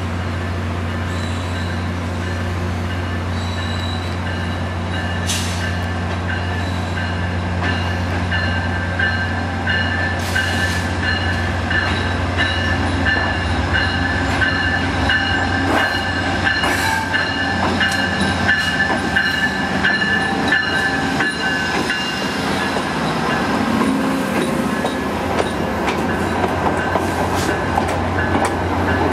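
VIA Rail passenger train led by a P42DC diesel locomotive pulling into the station, its cars rolling past close by: steel wheels squeal in a steady high whine from about eight seconds in until about twenty-two seconds, and wheels click over rail joints, more often near the end. A steady low drone of an idling diesel locomotive runs underneath.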